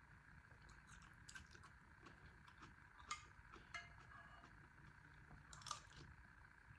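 Faint, scattered clicks of utensils against a soup bowl while eating, about five sharp ones with the loudest near the end.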